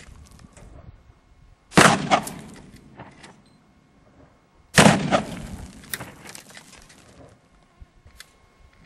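Two shots from a .45-70 Government rifle, about three seconds apart. Each is a loud crack that trails away over a second or so.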